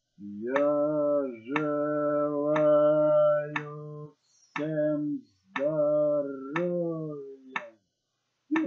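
Sharp ticks about once a second, like a metronome counting beats, over long held low droning tones whose pitch bends slightly, with short pauses about four seconds in and near the end.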